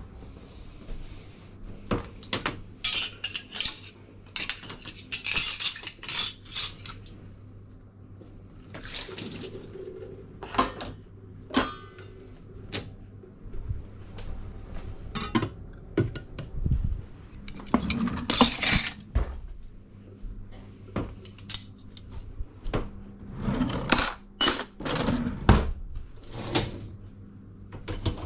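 Cutlery and dishes clattering as they are handled and loaded into a dishwasher rack: a long run of metal clinks and crockery knocks, with a few short hissy rushes in between.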